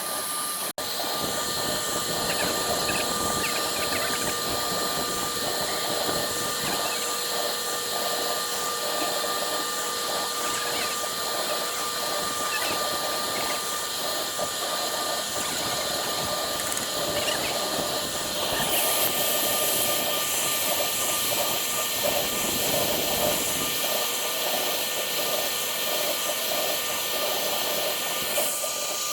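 CNC router spindle running with a steady whine while its bit engraves MDF, with a grainy cutting rasp over it. It cuts out briefly about a second in, and the hiss turns brighter about two-thirds of the way through.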